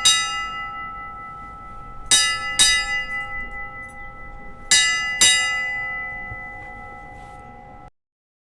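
Ship's bell struck in pairs, three pairs about two and a half seconds apart, ringing on between strikes in the way a ship's bell tells the time (six bells). The ringing cuts off abruptly near the end.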